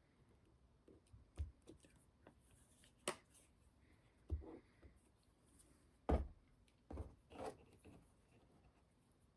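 Light taps and clicks of small model-kit parts being handled and set down on a workbench, about six sharp knocks at uneven intervals, the loudest about six seconds in.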